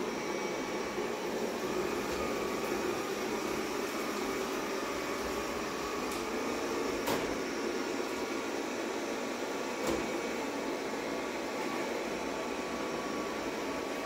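Xiaomi Mi Robot Vacuum-Mop Essential running: a steady whir from its suction fan and brushes as it drives about the floor, with two light clicks about three seconds apart in the second half.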